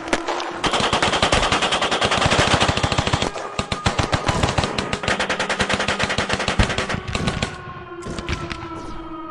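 War sound effect of rapid automatic machine-gun fire, dense and continuous, thinning out after about seven seconds. Under it runs a steady droning tone that slowly falls in pitch near the end.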